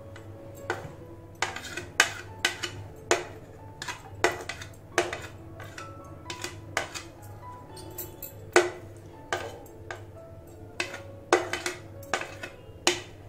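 A metal spoon repeatedly knocking and scraping against a wooden chopping board and the rim of a glass bowl as chopped vegetables are pushed off into the bowl, with sharp clinks about once or twice a second. Faint background music runs underneath.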